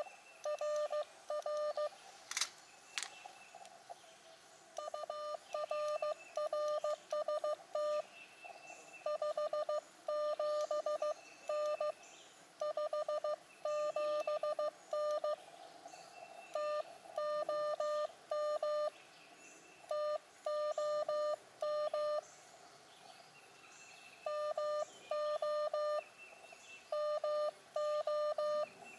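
Morse code (CW) from an Elecraft KX2 transceiver: a single steady beep keyed on and off in dots and dashes, in runs with short gaps, carrying a signal-report exchange. Two sharp clicks a little over two seconds in.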